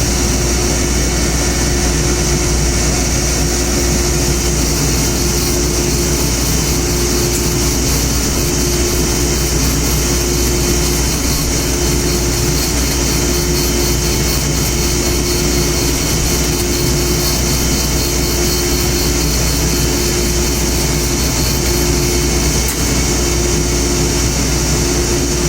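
Old woodworking machine running steadily while it trims wooden chopstick blanks to equal length, a loud continuous mechanical drone with a hum that briefly drops out now and then.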